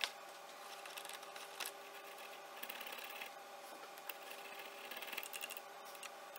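Faint scratching and a few small sharp clicks of a fine paint brush working lint and gunk out of a sewing machine's bobbin area around the feed dogs, over a faint steady hum.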